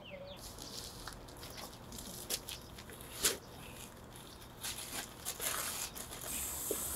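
Paper cement bag handled and emptied over a plastic basin: scattered rustling, crinkling and light knocks. About six seconds in, a steady hiss of water spraying from a garden hose begins.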